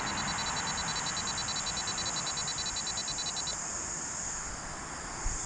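Outdoor ambience of insects calling steadily, high-pitched, with a fast pulsing trill that stops about three and a half seconds in, over a low hiss of distant road traffic.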